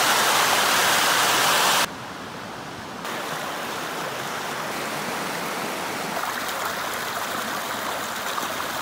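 Mountain stream rushing steadily. The sound drops suddenly about two seconds in and comes back a little louder a second later.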